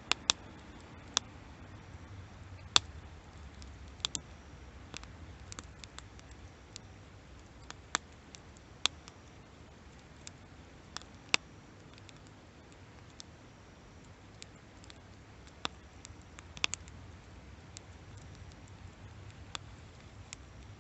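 Wood campfire crackling: sharp pops at irregular intervals, a handful clearly louder than the rest, over a soft low rumble.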